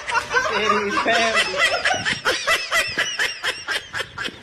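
A person laughing hard, a run of quick giggles at several a second through the second half.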